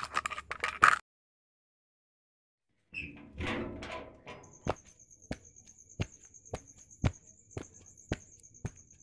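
Footsteps on bare ground, about two a second, over a steady high chirring of insects. At the start there is a brief clatter of small objects being handled at a counter.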